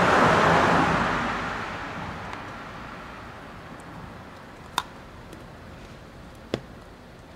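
Water sloshing in a shallow inflatable pool, swelling suddenly and dying away over about three seconds, followed by two sharp clicks.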